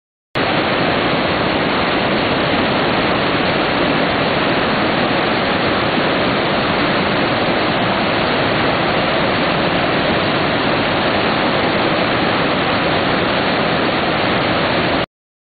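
Victoria Falls: the steady, loud rush of a huge volume of falling water, even and unchanging. It starts abruptly just after the beginning and cuts off sharply near the end.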